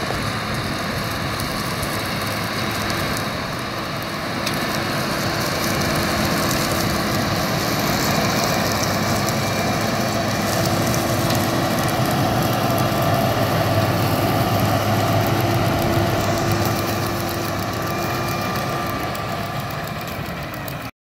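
Tractor engine working under load while pulling a Pronar N161/3 muckspreader, whose rear vertical beaters are flinging manure. The running grows louder about four seconds in as the rig passes close, then eases off near the end.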